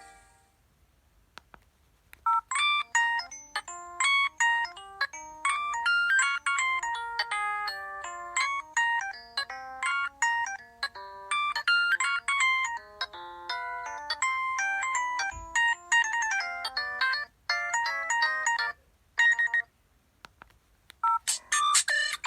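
Preloaded ringtone of an LG B470 phone playing a melody of quick, short notes over a lower bass line, lasting about seventeen seconds. After a brief pause, the next ringtone starts near the end.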